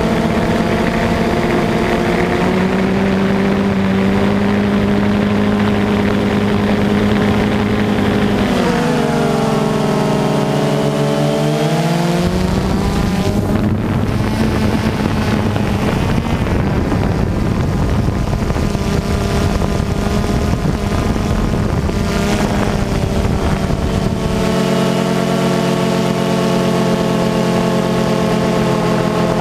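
Quadcopter motors and propellers whirring with a steady multi-tone whine. About nine seconds in the pitch dips and climbs back. It is then partly buried under a rushing noise until the steady whine returns near the end.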